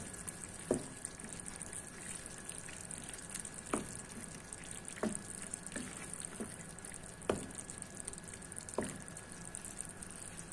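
Thick tomato-based bean curry gravy being stirred with a wooden spatula in a frying pan: soft wet plops and squelches every second or two over a steady low hiss.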